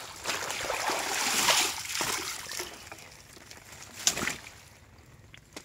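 Water splashing and sloshing for about two seconds, fading away, then a single sharp click about four seconds in.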